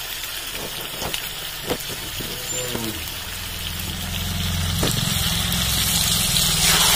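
Chicken curry sizzling and hissing in an uncovered metal wok over a low rumble; the sizzle grows louder from about four seconds in.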